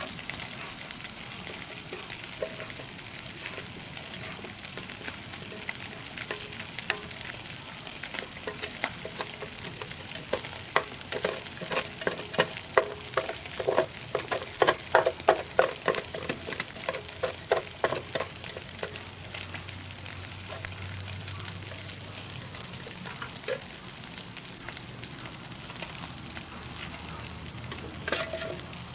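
Food sizzling over a campfire: a steady hiss with a busy run of small crackles and pops in the middle.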